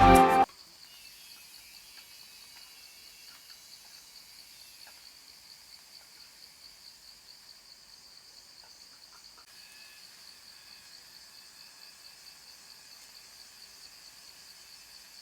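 Background music cuts off about half a second in, leaving a steady, high-pitched chorus of cicadas.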